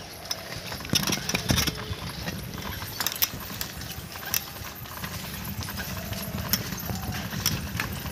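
A bicycle rattling and clicking at uneven intervals as it is ridden over a cracked concrete lane, over a steady low rumble.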